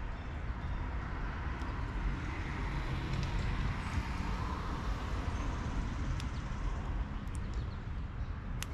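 Steady outdoor background noise with a low rumble, swelling through the middle the way passing road traffic does. A few faint clicks and taps come from hands trimming the rubber cups off the plastic taillight's mounting posts with a knife.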